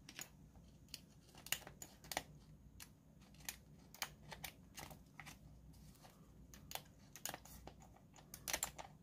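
Scissors snipping a sheet of decal transfer paper in a string of short, irregular cuts, with some paper crinkle. The cutting goes hard, either from dull scissors or from tough transfer material.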